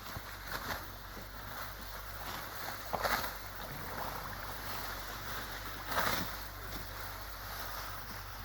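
Rice being harvested by hand: dry rice stalks swishing and rustling in three short bursts about three seconds apart, over a steady background hiss.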